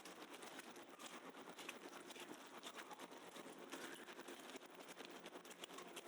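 Faint city street ambience on a snowy night: a low steady hum under a dense, irregular light crackle.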